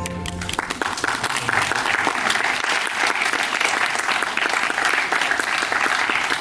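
Audience applauding, many hands clapping steadily. The end of organ-like music fades out in the first half second.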